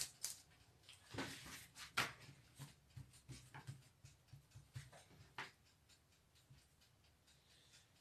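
Faint handling sounds of hands lifting and folding a square of pastry dough on a floured countertop: soft rubs and a few light taps, the clearest about a second, two seconds and five and a half seconds in.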